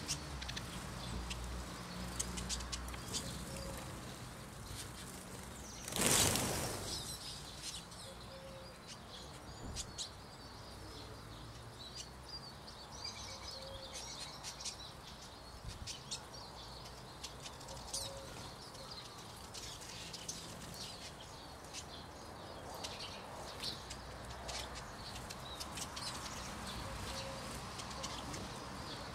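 Eurasian siskins at a bird table: scattered high chirps and ticks, with a brief loud flurry of wingbeats about six seconds in.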